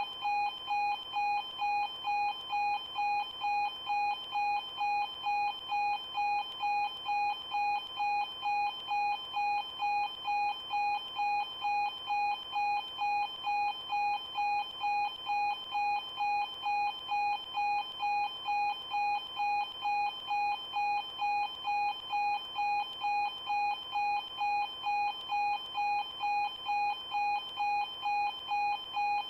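Level crossing warning bell ringing continuously, an even, unchanging series of bright ringing strikes at a bit more than one a second.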